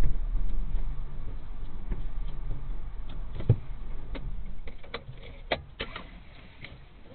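Car engine running low as the car rolls to a stop inside the cabin, its hum fading away toward the end. From about three seconds in comes a scatter of sharp, irregular clicks and knocks from inside the car.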